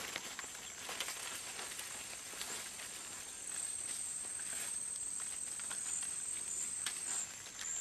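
Rainforest ambience: a steady high-pitched insect buzz, louder from about three and a half seconds in until near the end, over scattered light rustles and steps in leaf litter.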